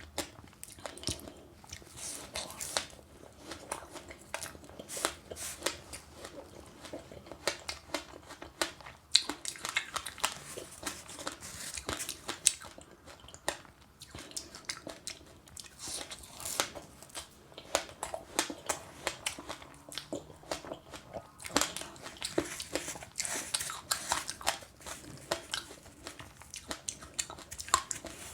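Biting and chewing crunchy passionfruit with sesame seeds: a dense, irregular run of crisp crunches.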